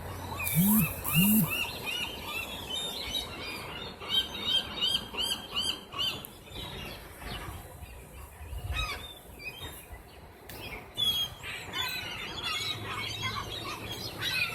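A flock of gulls calling over one another as they are fed, short arched cries overlapping throughout. Two loud calls come near the start, and a quick run of repeated calls follows about four seconds in.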